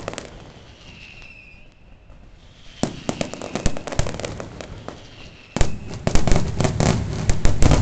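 Aerial fireworks shells bursting in sharp reports and crackles: after a short lull the bursts start about three seconds in, and a loud report a little past halfway sets off dense, rapid crackling.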